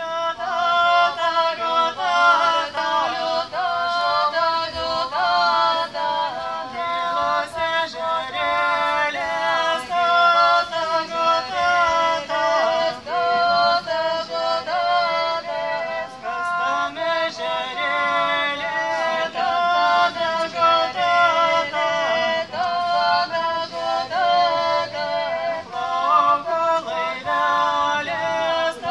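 Lithuanian sutartinė, a three-part canon (trejinė), sung a cappella by a mixed group of women's and men's voices. Short phrases repeat and overlap one another without a break.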